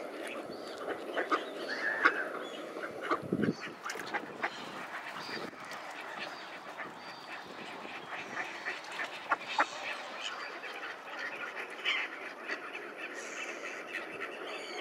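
Mallards quacking among a crowd of feeding mute swans and ducks on the water, with many short splashes and clicks as they dabble.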